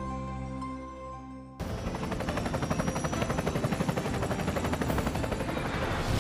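Sustained tones of a television programme ident fade out. About a second and a half in, a sudden cut brings in a dense action soundtrack: dramatic music under rapid, evenly repeated pulses, about five a second, of war-film sound effects.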